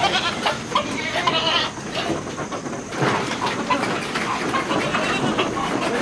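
Goats bleating as several of them clatter down a wooden plank ramp, their hooves knocking on the slats.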